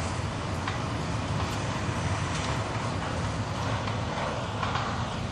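Demolition crane's diesel engine running steadily as a low rumble, with a few faint knocks.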